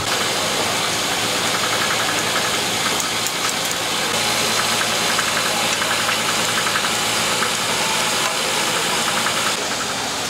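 A small engine running steadily with a rapid ticking, over a constant hiss.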